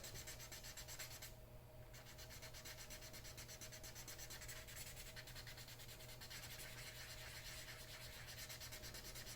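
Sandpaper (320 grit) rubbing over a small cured gel coat repair on a fibreglass dinghy rudder. The strokes are faint, quick and rhythmic, with a brief pause about a second and a half in.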